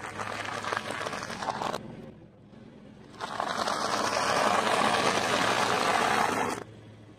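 Car tyre rolling over a pile of dry spiral pasta on concrete, crunching and crackling as the pieces break. A short stretch of crunching first, then after a brief lull a longer, louder run of dense crunching that stops suddenly near the end.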